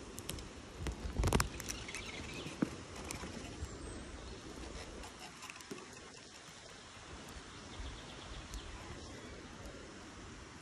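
Light rain pattering on leaves and the lake surface. A short loud burst comes about a second in, and a single sharp click near three seconds.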